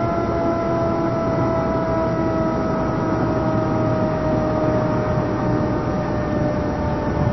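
ACA Hurricane 130 outdoor warning siren sounding a held chord of tones that slowly falls in pitch, over a low rumbling hum.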